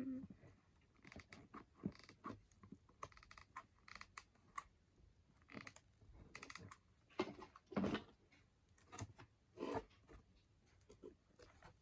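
Cardboard being handled: scattered light taps, knocks and rustles at irregular intervals.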